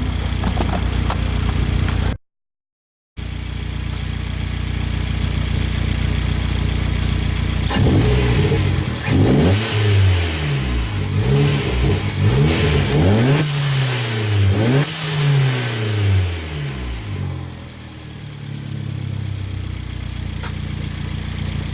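Hyundai Genesis Coupe's turbocharged four-cylinder idling, then revved in five or six quick throttle blips, each rising and falling, before it drops back to a steady idle. The sound cuts out completely for about a second, about two seconds in.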